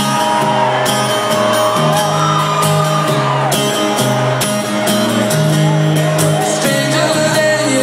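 Live rock band playing an instrumental passage of the song with a steady drum beat and held notes, loud and amplified.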